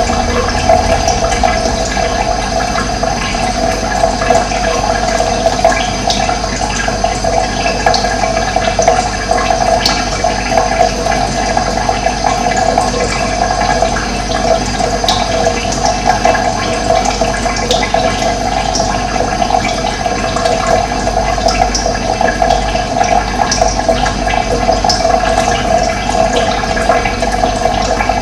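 Running water rushing steadily and continuously, with a few brief high chirps above it.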